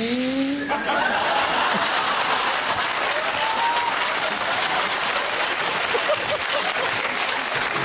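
Audience applauding steadily, starting under a rising vocal sound in the first second, with a few voices calling out over the clapping.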